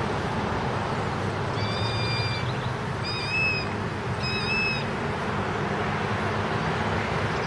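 Steady engine and road noise of a moving car, with three short, high, even tones, each under a second, a little over a second apart, in the middle.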